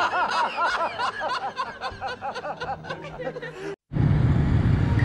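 High-pitched, rapid giggling laughter, likely a laugh sound effect. It cuts off abruptly almost four seconds in, and electronic music with a heavy low beat starts.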